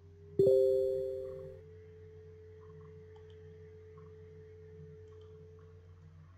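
Telegram desktop notification chime about half a second in: a single bright bell-like ding of two tones that rings out over about a second and leaves a fainter tone fading away. Under it are a steady low electrical hum and a few faint mouse clicks.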